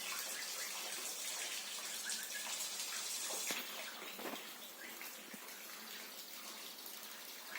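Water spraying in a steady hiss as a simulated rain shower, heavier for the first three and a half seconds and then lighter.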